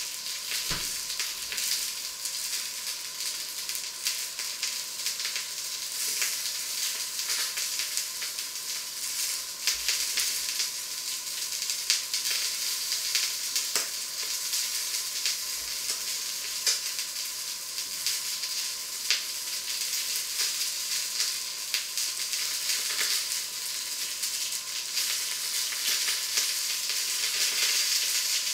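Food frying in a pan on the stove: a steady sizzle with frequent small crackles and pops.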